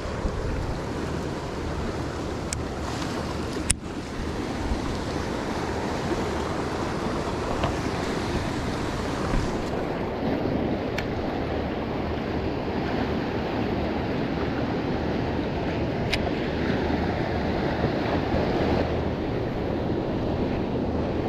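Waves washing against the jetty rocks, with wind buffeting the microphone. A faint low hum runs underneath, and a few sharp clicks stand out, the loudest about four seconds in.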